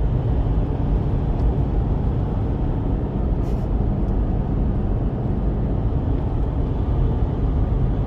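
Steady low road and engine rumble heard inside the cabin of a Mitsubishi Triton ute cruising at highway speed.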